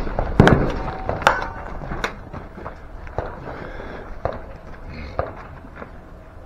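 Boots running across dirt and concrete with tactical gear and a rifle rattling, with a few sharp knocks in the first two seconds. After that come softer scattered knocks and rustles as the shooter settles behind a wooden barricade.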